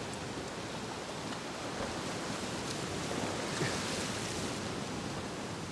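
Sea surf washing against a rocky shore: a steady rush of water that swells a little around the middle.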